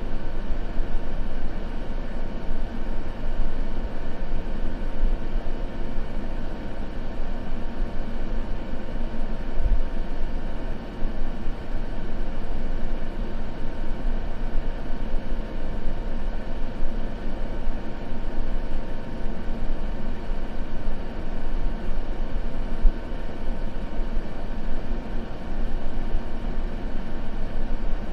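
Steady white-noise ambience: an even, unbroken rushing noise, heavier in the low end, with no crackle or change.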